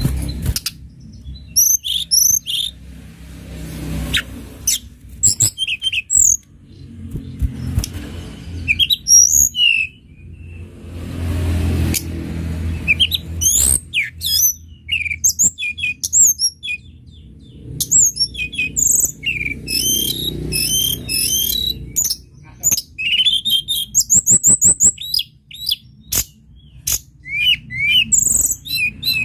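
Tledekan gunung singing: a varied string of sharp chirps, sweeping whistled notes and fast trills in separate phrases, with a steady low rumble underneath.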